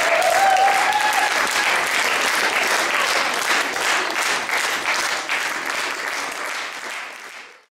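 Audience applauding, a dense steady clapping that fades out about seven seconds in.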